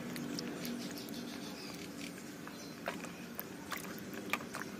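Water sloshing and dripping as a hand swishes a radish around in a plastic basin of water, with a few sharp drips and splashes in the second half.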